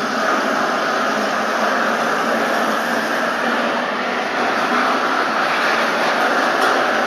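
Steady, even background noise with no distinct events, like a machine's running hum mixed with hall ambience.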